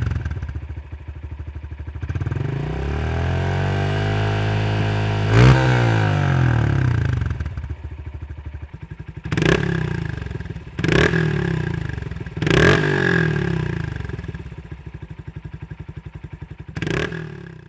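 Honda CRF125F's single-cylinder four-stroke engine through a DELTA Barrel 4 MINI aftermarket exhaust. It revs up slowly and holds higher revs for a few seconds, peaks sharply and falls back to idle, then gives four short throttle blips, each settling back to idle.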